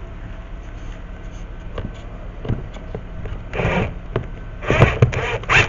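Plastic instrument cluster being handled and screwed together: scattered clicks and knocks, then a few short scraping, rustling bursts over a steady low hum.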